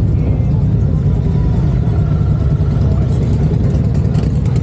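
Harley-Davidson V-twin motorcycle engine running steadily.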